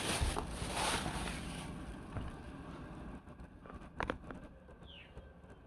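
Packaging rustling as the hair dryer is handled during unboxing, dying away after about two seconds. A single sharp knock comes about four seconds in, then a few faint ticks.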